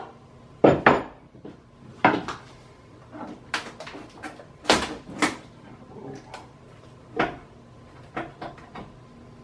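Irregular sharp knocks and cracks, about eight or nine spread unevenly, from a laid-up fiberglass fuselage mold as its halves are wedged and pried apart by hand.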